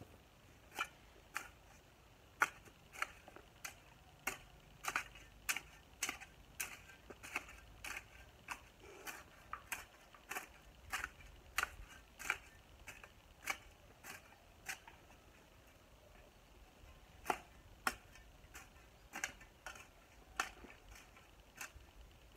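Long-handled garden hoe chopping into soil in a steady rhythm of sharp clicks, about two strikes a second. The strokes pause for a couple of seconds about two-thirds of the way through, then resume.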